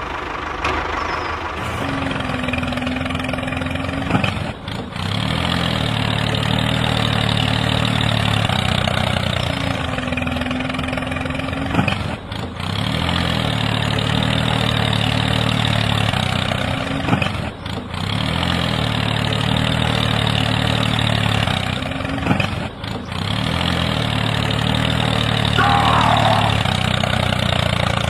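Tractor engine running steadily, broken off for a moment every five seconds or so and picking up again.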